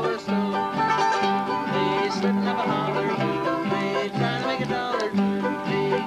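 Acoustic string music in bluegrass style: a quick picked melody over steady alternating bass notes.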